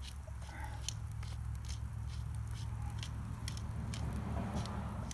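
Small wood fire crackling under a cast iron Dutch oven, with sharp irregular pops every few tenths of a second over a low steady rumble.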